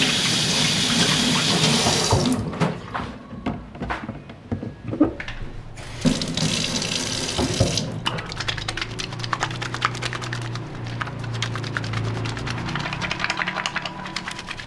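Tap water running into a stainless steel sink, shut off about two seconds in and run again briefly around six seconds in. From about eight seconds on, soapy wet hands are rubbed together in a quick run of fine wet squelches.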